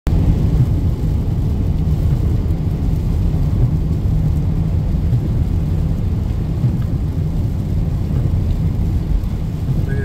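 Steady low rumble of road noise inside a moving car's cabin, tyres running on a rain-soaked highway.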